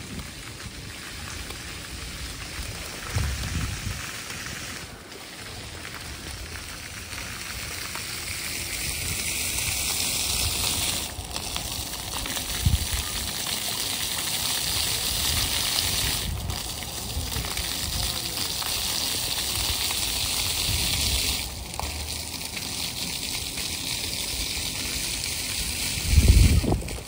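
Steady hiss and patter of water jets falling onto paving from a ground-level splash fountain, louder through the middle, with a few brief dips. A short low bump near the end.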